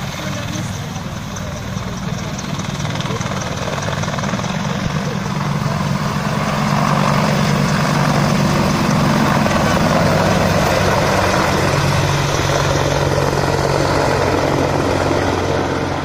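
AH-64 Apache attack helicopter running at low hover after lifting off, with a steady rotor and turbine sound that grows louder from about a quarter of the way in and eases a little near the end.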